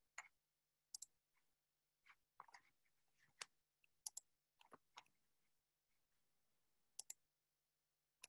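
Faint, scattered clicks of a computer mouse, about a dozen spread over the stretch, several in quick pairs.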